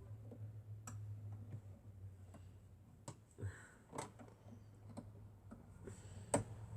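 A few separate sharp clicks and taps, spaced about a second or more apart, from handling the small parts of a sewing machine, over a low steady hum.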